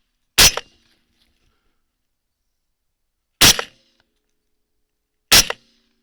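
Three rifle shots, loud and sharp, each dying away quickly: one about half a second in, one about three and a half seconds in and one near the end.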